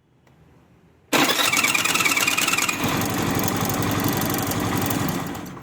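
A Hero Maestro Edge scooter's electric starter is pressed about a second in, and the starter makes an abnormal whining, grinding noise as the engine is cranked and starts. The noise settles into steady engine running that drops away near the end. The mechanic suspects the starter's bendix drive behind the clutch cover.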